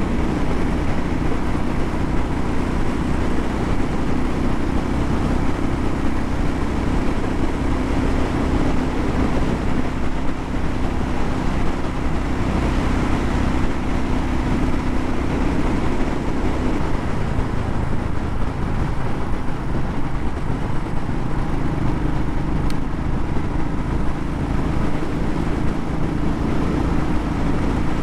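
Motorcycle engine running at a steady cruise, with road and wind noise over the handlebar-mounted camera's microphone.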